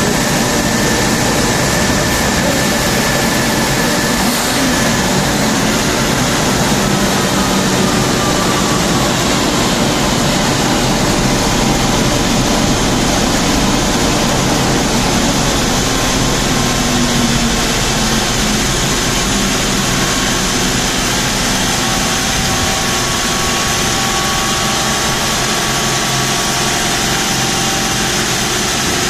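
Mercedes M119 5.0-litre V8 in a W201 running steadily on a chassis dynamometer: a loud, even drone whose pitch drifts only slightly.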